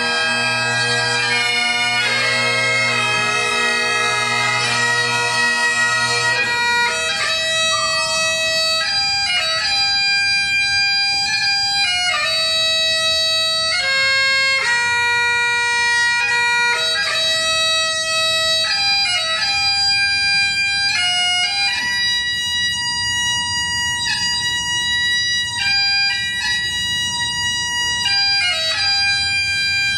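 Great Highland bagpipes playing a slow tune: two sets with their drones at first, thinning about six seconds in to a single melody line of held notes stepping up and down.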